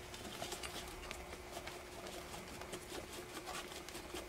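Dry pancake mix being poured from a cardboard box into a glass bowl: a faint patter of scattered small ticks and crackles, over a faint steady hum.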